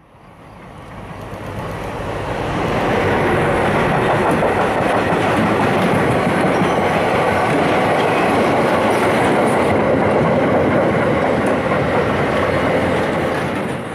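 Freight train passing close by: an electric locomotive approaches, then a long rake of empty double-deck car-transporter wagons rolls past with a steady rumble and clattering wheels. It swells over the first few seconds and fades right at the end.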